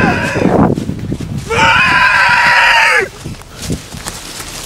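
A person's high-pitched, held scream that breaks off about half a second in, then a louder second scream lasting about a second and a half that drops in pitch as it ends.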